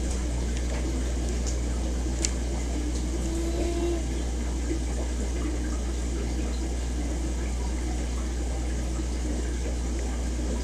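Steady hum and water noise of running aquarium filtration: air-driven filters and pumps with water bubbling and churning in the tanks. A faint click about two seconds in.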